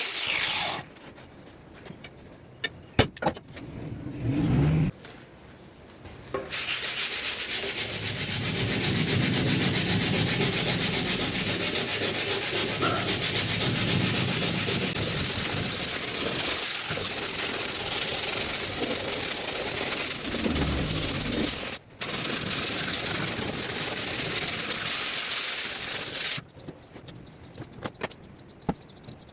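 A power tool sanding or wire-brushing rusted metal, running steadily for about twenty seconds with a short break, after a few knocks and clicks.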